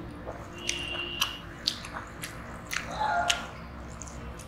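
A person chewing a mouthful of hand-eaten rice close to the microphone, with wet smacking mouth clicks about every half second. Fingers squish and mix rice on a steel plate.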